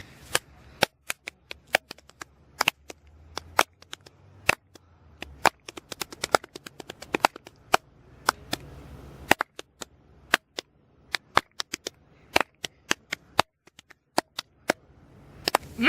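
Fireworks going off: a long, irregular run of sharp cracks and pops, several a second at times, with short gaps between.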